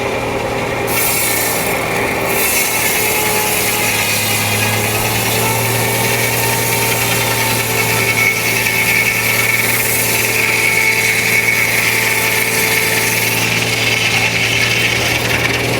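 Frick No. 1 sawmill's circular head saw cutting through a log: a harsh, steady sawing hiss starts about a second in and stops near the end, over a steady running hum.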